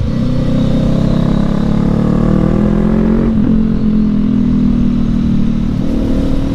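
Motorcycle engine and exhaust running on the road, the pitch rising for about three seconds, a brief break about three and a half seconds in, then running steadier.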